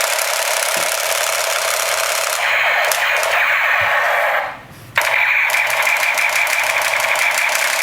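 Battery-powered AKM toy gun playing its electronic machine-gun sound effect through a small, tinny speaker with no bass. One long burst cuts off about four and a half seconds in, and a second burst starts half a second later.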